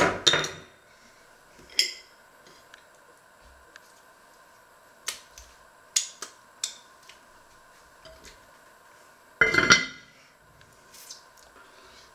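Kitchenware clattering: a sharp clatter at the start, a few light clicks, then the loudest clank about two-thirds of the way through as a red enamelled cast-iron lid is set onto its matching pot.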